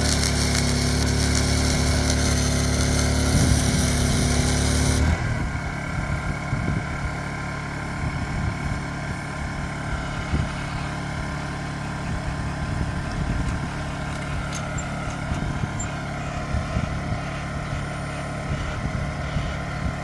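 Portable generator engine running steadily. For the first five seconds a loud hiss lies over it, then cuts off abruptly, and the engine runs on more quietly.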